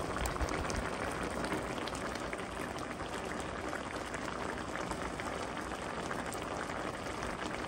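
Skate braise in a thick soy-and-chili sauce simmering in a frying pan, a steady dense crackle of small popping bubbles.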